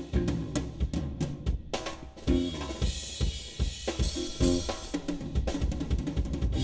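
Live funk band playing. A drum kit keeps a busy groove of kick, snare and hi-hat, with a bass line and short pitched instrument phrases over it.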